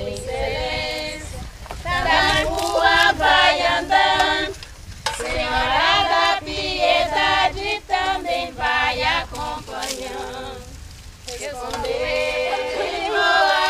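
A group of women singing an incelência unaccompanied, a slow folk devotional chant asking for rain, in phrases with short pauses between them. Splashes of water thrown onto the cross are heard under the singing in the middle.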